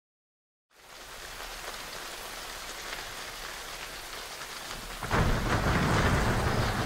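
Steady rain falling, fading in just under a second in. About five seconds in it gets louder, joined by a deep rumble of thunder.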